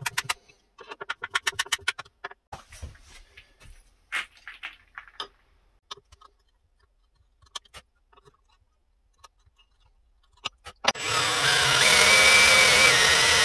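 Rapid clicking in two short runs as a hand screwdriver drives coarse-thread plasterboard screws into a wooden stock, followed by scattered small clicks and taps. Near the end a cordless drill starts and runs steadily, boring a post hole into the beech stock.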